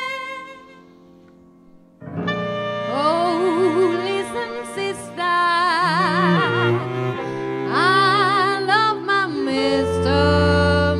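Jazz arrangement for voice, clarinet, cello and piano. A held note dies away to a quiet pause in the first two seconds. Then the ensemble comes back in, with the singer's long notes carrying wide vibrato over cello and piano.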